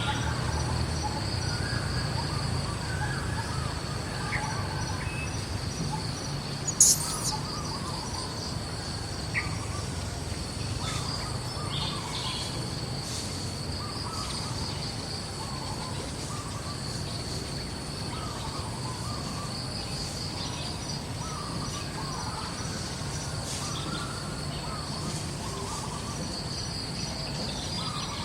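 Outdoor ambience: a steady high insect drone that drops out briefly now and then, with short bird calls repeated throughout over a low rumble. A single sharp click sounds about seven seconds in.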